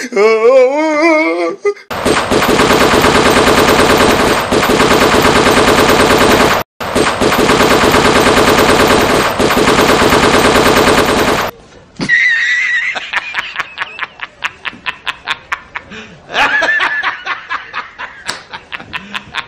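Loud recorded sound effect of rapid automatic machine-gun fire: fake gunfire that starts abruptly about two seconds in and runs for about nine seconds, broken once by a short gap near the middle. After it stops come rapid clicking and laughter.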